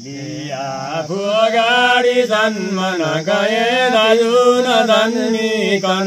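A young boy chanting a Hindu devotional bhajan solo, singing long, wavering held notes in phrases with short breaks between them.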